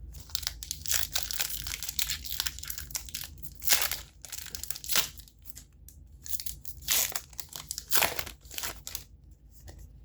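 Foil wrapper of a Magic: The Gathering booster pack crinkling and tearing as it is opened, with several louder crackles.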